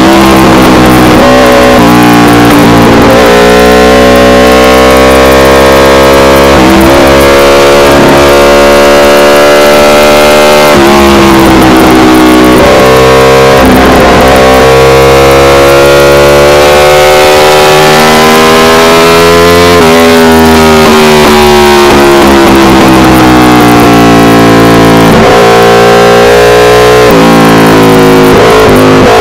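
Aprilia RSV4 Factory's V4 engine through an SC Project CRT exhaust, recorded at full race pace, loud and distorted. The revs climb and then drop sharply at each gear change, several times, and about two-thirds through they fall steadily as the bike slows before picking up again near the end.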